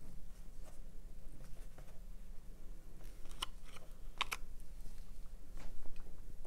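Hands handling and pressing a rhinestone mesh strip around a small plastic spray bottle: a few light clicks and crinkles, the sharpest a little past three seconds and around four seconds in. A steady low hum runs underneath.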